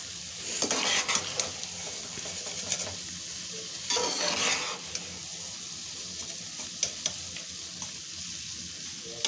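Slotted spoon gently stirring and scraping cooked rice in a steel pot, with louder scrapes about a second in and about four seconds in. A steady sizzle of the hot ghee-and-jaggery syrup runs underneath.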